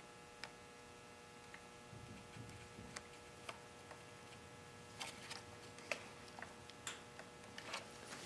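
Faint, scattered clicks and light ticks of fingers working a fuel line onto a small engine's carburetor fitting. A steady electrical hum runs underneath.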